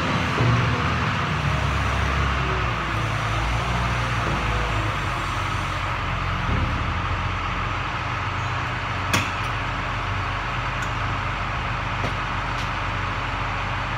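JCB wheel loader's diesel engine running steadily close by, heard from inside a vehicle's cab, with a single sharp click about nine seconds in.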